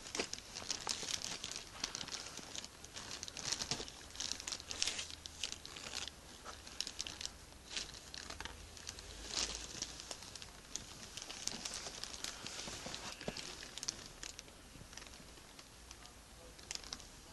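Irregular rustling and crinkling noises, many short scuffs that come thick in the first half and thin out toward the end.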